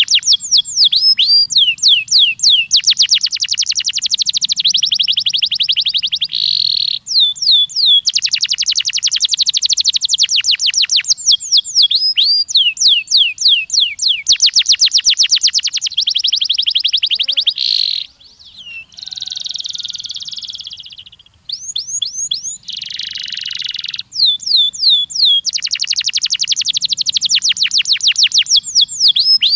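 Canary singing a long, loud song built from fast trills: rapid runs of repeated high notes that switch from one note type to another, with falling whistled sweeps between some runs. The song dips briefly a little past the middle.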